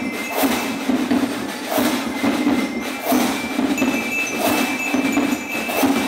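Parade marching band playing: drums beat a steady march rhythm while held, bell-like metallic tones ring above it.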